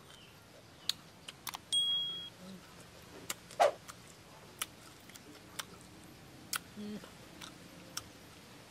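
A person eating shrimp with chili sauce: wet lip smacks and sharp mouth clicks while chewing, with one louder slurp about three and a half seconds in as the sauce is sucked off the fingers.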